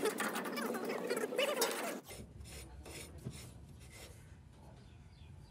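Louder, busy workshop noise that cuts off abruptly about two seconds in, followed by quieter rhythmic rasping strokes, about two to three a second, over a low hum.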